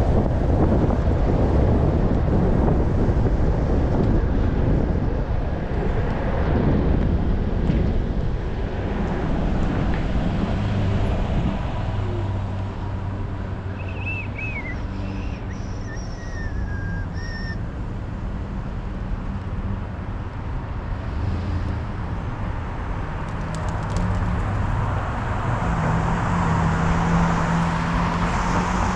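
Wind buffeting the microphone of a moving bicycle, heaviest in the first third and then easing, over city traffic with motor-vehicle engines humming steadily.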